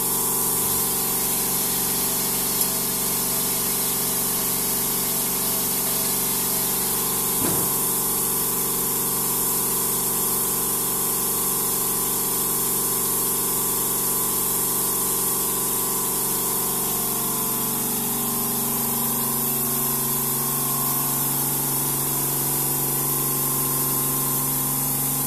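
TESTEX TU380 salt spray tester running: a steady hiss of its atomizer spraying salt fog into the chamber, over a steady machine hum.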